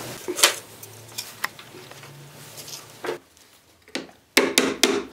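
Small wooden parts and a hand tool being handled on a workbench: a few light, sharp clicks and knocks of wood, then a quick run of short strokes near the end.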